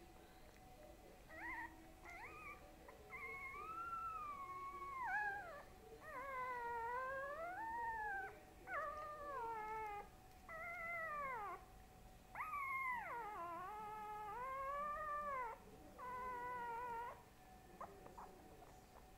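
A young pet making a run of about ten long, drawn-out cries, each gliding up and down in pitch, with short gaps between them.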